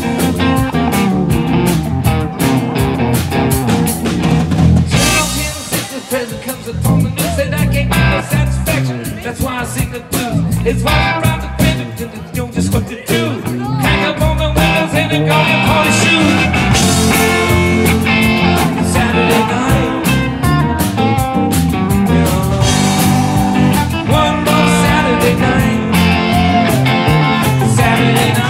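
Live rock band playing: electric guitars and keyboard over a drum kit. The sound thins and drops in level for several seconds in the first half, then the full band comes back in and plays on steadily.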